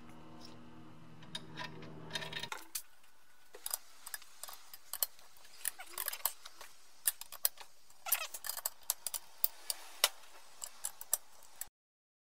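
Sharp metallic clicks and clinks of steel washers, a nut and an adjustable spanner on the threaded rod of a homemade bush puller, fitted and turned on a BMW E30 rear trailing arm to draw out its bush. A low steady hum stops abruptly about two and a half seconds in.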